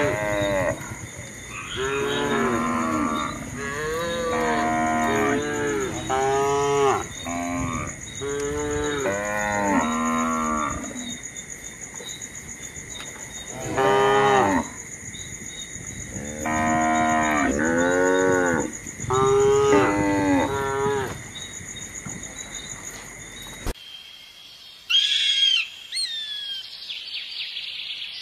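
Young cattle mooing over and over, about ten drawn-out calls in groups with short pauses. After a sudden cut near the end, a bald eagle gives a few high, short calls that slide in pitch.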